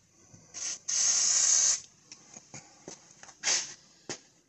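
Aerosol can of penetrating oil spraying onto a seized axle nut and hub to loosen them: a short spurt, then a steady hiss of about a second, and another short spurt later, with a sharp click near the end.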